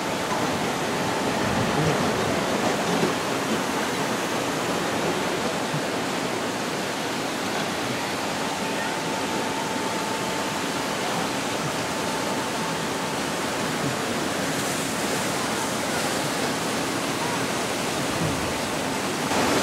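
Steady rush of water flowing down a raft ride's flume and churning through its white-water channel.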